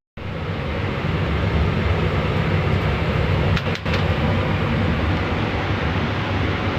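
Laser cutting machine running while cutting wood: a steady rushing noise over a low hum, with a brief dip about three and a half seconds in.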